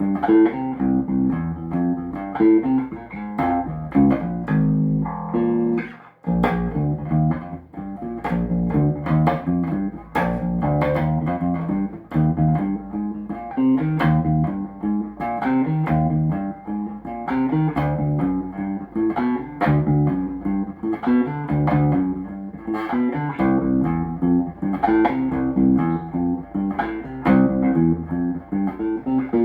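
Golden electric bass, freshly serviced, played through an amp: a continuous run of plucked notes and repeating phrases, with a brief break about six seconds in.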